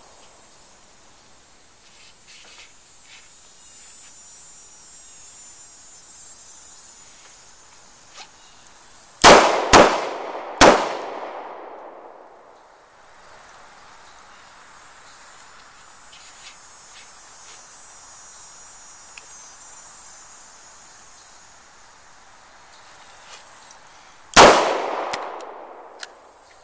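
Four revolver shots from a Smith & Wesson M&P 360, each ringing out across the range: a failure-drill string of two quick shots to the body and a third shot to the head just under a second later, then a single shot about fifteen seconds after that.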